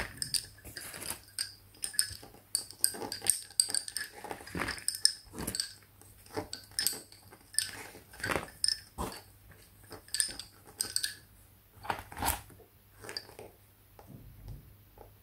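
Lace bobbins clicking and clinking against one another in quick, irregular clusters as pairs are crossed and twisted in bobbin-lace work, with fewer clicks near the end.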